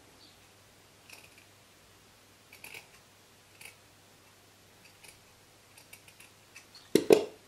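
Scissors cutting a small circle out of old clothing fabric: faint, short snips spaced irregularly, with a louder short knock near the end.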